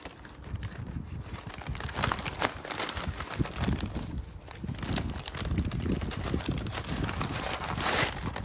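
McShaker Fries paper bag crinkling and rustling as the fries are tipped in and the closed bag is shaken by a plastic-gloved hand, fries rattling against the paper inside. The rustling starts about a second and a half in and is loudest near the start and again near the end.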